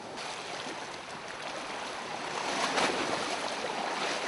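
Surf washing on a sandy beach, a steady rush that swells as a wave breaks about two and a half seconds in.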